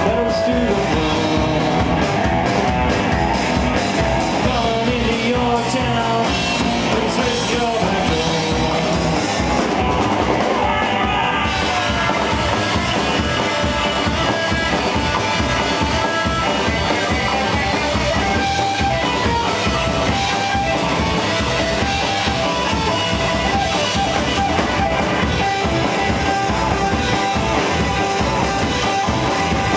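Live band playing a song: upright double bass, drum kit and electric guitar together, loud and steady.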